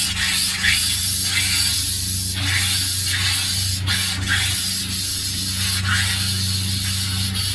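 RV hot water tap spitting and sputtering as air is purged from the freshly filled water heater, the hiss of water coming in irregular spurts over a steady low hum.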